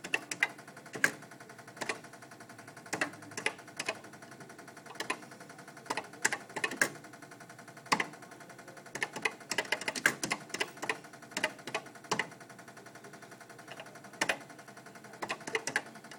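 Keystrokes on a Commodore PET 4032's keyboard: short, sharp key clacks in irregular runs with pauses between, as a line of BASIC is typed in.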